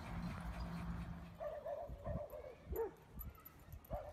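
A dog whining in a string of short, high calls, each rising and falling in pitch, starting about a second and a half in, over faint background hiss.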